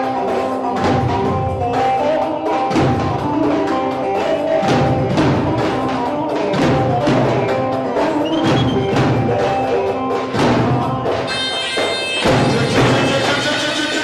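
Turkish folk dance music: drums beating a steady rhythm under a held melody.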